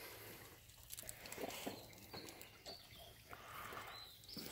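Faint wet knocks and scrapes of a dog mouthing and chewing a freshly caught catfish on concrete.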